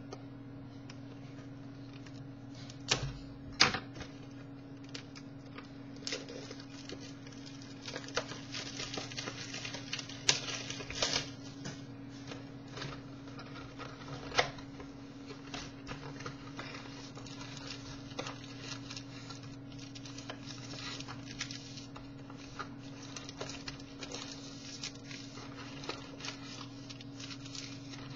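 A sports card box and its packs being opened and the cards handled: cardboard and wrapper rustling with scattered clicks and snaps, the sharpest few a few seconds in and again around ten to fourteen seconds in. A steady low hum runs underneath.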